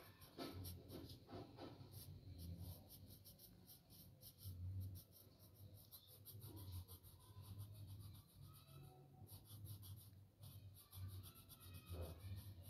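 Pencil scratching on paper in quick, short shading strokes, several a second, with brief pauses; faint.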